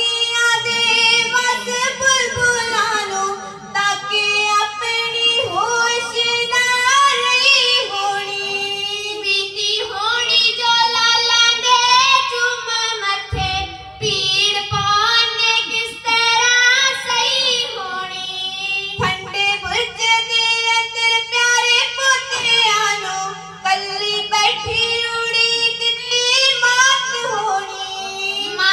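Children singing kavishri, Punjabi folk verse, into stage microphones, with long held and sliding notes over a steady low drone.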